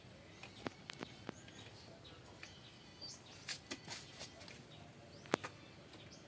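Scattered sharp clicks and taps of plastic PVC pipe fittings being handled and pushed together on the pipe, the loudest about five seconds in. Birds chirp faintly in the background.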